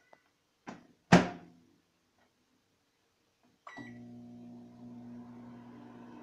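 Microwave oven: a loud clunk as its door shuts about a second in, then a keypad beep and the oven starts running with a steady hum from about three and a half seconds in.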